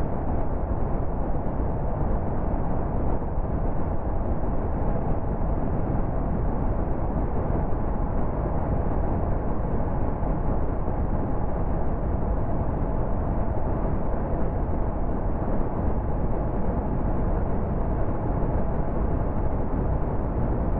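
Steady road noise of a car cruising at motorway speed: an even, low rumble of tyres and wind with no change in pace.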